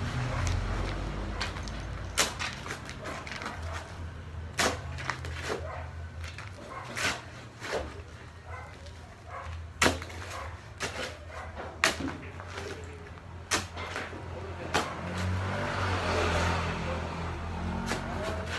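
Manual construction work: irregular sharp knocks and clinks of tools striking hard material, over a steady low hum. Near the end there is a longer rush of noise.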